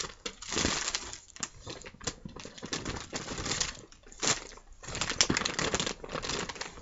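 Clear plastic bags rustling and crinkling as they are handled, with irregular small clicks and knocks.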